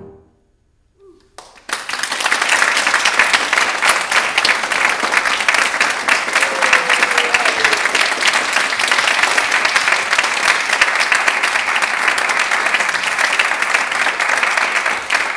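An audience breaks into applause about a second and a half in, after a moment of silence, and keeps clapping steadily.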